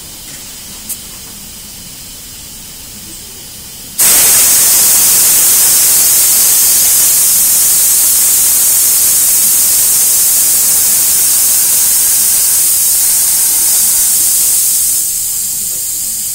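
Compressed air hissing hard from a shop air line, starting suddenly about four seconds in and easing a little near the end.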